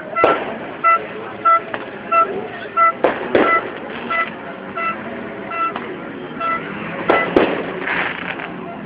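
Fireworks banging several times, two close pairs about three and seven seconds in, over a steady run of short horn toots repeating about one and a half times a second.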